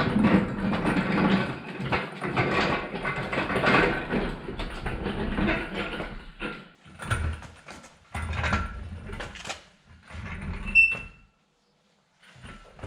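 Mechanical clattering and knocking of metal parts and tools being worked, thinning out after about six seconds into separate clanks, with a short ringing ping near the end.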